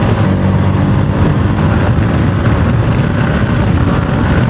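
Yamaha MT-15's single-cylinder engine running steadily under way, with wind noise over the helmet microphone.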